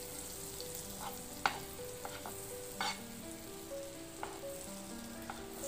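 Butter sizzling as it melts in a hot nonstick frying pan. A plastic spoon stirring it knocks against the pan a few times.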